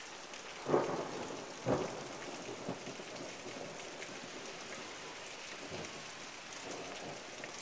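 Steady heavy rain pouring down, with two sharp knocks about one and two seconds in.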